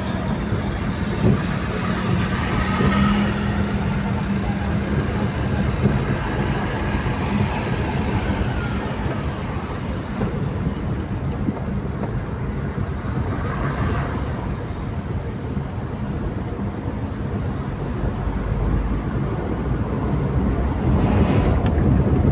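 Road traffic on a highway: engines and tyres of passing vehicles in a steady wash of noise. It grows louder near the end as a vehicle passes close with a deep rumble.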